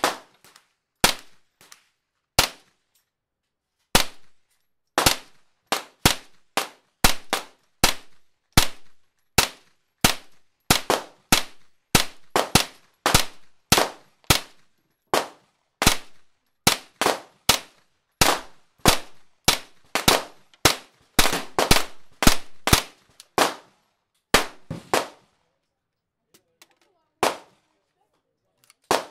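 Gunfire at an outdoor range: dozens of sharp single shots fired in quick succession, often one or two a second, with a short pause near the start and only a few scattered shots near the end.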